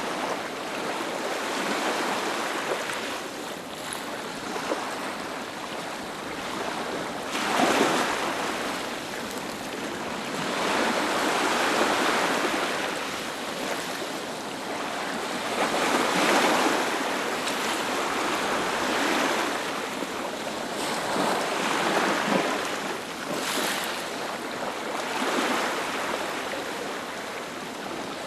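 Ocean waves breaking and washing up a beach, a continuous surf noise that swells and ebbs every few seconds.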